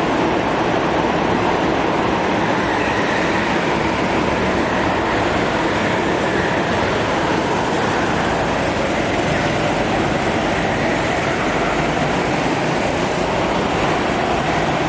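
Several go-kart engines running together at race pace, a dense, steady mechanical drone filling a large indoor hall.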